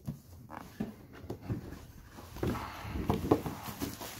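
A cardboard gift box being handled and opened: scattered knocks and scrapes as the lid is pulled off, busiest in the second half.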